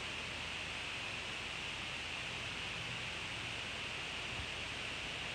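Steady background hiss, strongest in a high band, with no distinct sounds in it.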